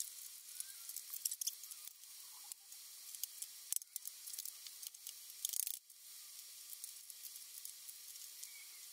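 Small metal screws and a metal resin-vat frame being handled on a wooden table: scattered light clicks and taps over a steady faint hiss, in sped-up footage.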